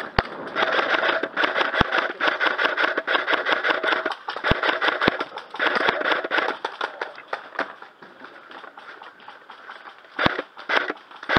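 Airsoft electric rifles firing on full auto: a rapid clatter of shots over a motor whirr, thinning out for a couple of seconds near the end before picking up again, with a few dull thumps.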